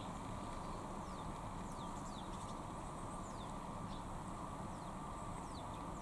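Faint, short, high bird calls, each sliding down in pitch, scattered through over a steady low background rumble.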